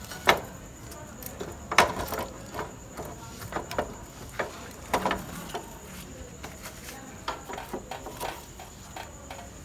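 Irregular knocks and clicks of metal parts being handled while the rear wheel is refitted to a motorcycle, the two loudest about a third of a second and just under two seconds in, then smaller, sparser ones.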